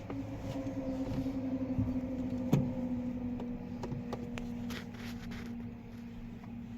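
A steady machine hum, its pitch sinking slightly, with scattered light clicks and one sharp knock about two and a half seconds in.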